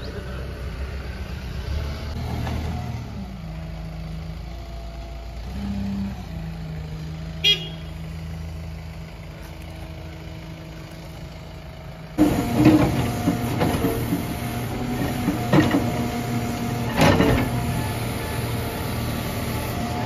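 Backhoe loader's diesel engine running, its pitch stepping up and down, with one short high toot about seven and a half seconds in. About twelve seconds in the engine sounds closer and louder, and several sharp metallic clanks and knocks come from the bucket working among stones.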